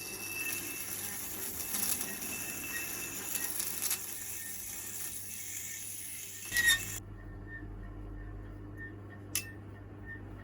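Blunt secateur blade being sharpened: a continuous rough metallic rasping for about seven seconds that then stops, followed a couple of seconds later by a single sharp click.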